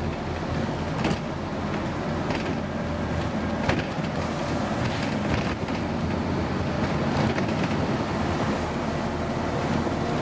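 Interior noise on the upper deck of a Scania N230UD double-decker bus under way: its five-cylinder diesel runs steadily beneath road and tyre noise. Sharp rattles from the body and fittings come a handful of times.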